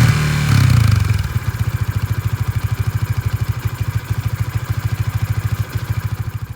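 Single-cylinder motorcycle engine coming down off a rev in the first second, then idling with a steady, even pulse.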